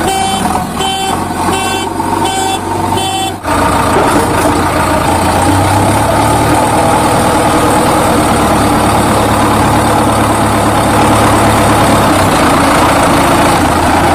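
Electronic truck sound effects: a run of short horn beeps about every half second, then, about three and a half seconds in, a sudden change to a steady heavy engine rumble.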